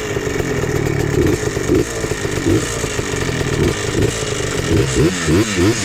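Yamaha Blaster 200 big-bore ATV's single-cylinder two-stroke engine running while ridden, its pitch swinging quickly up and down with the throttle near the end.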